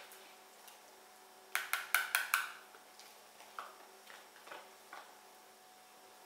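Wire whisk beating zlabia batter in a plastic bowl, clicking against the bowl's side in a quick run of five strikes about a second and a half in, followed by a few softer knocks.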